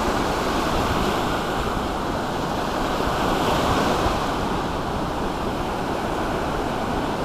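Ocean surf: waves breaking and washing in as a continuous rush, swelling slightly about three to four seconds in.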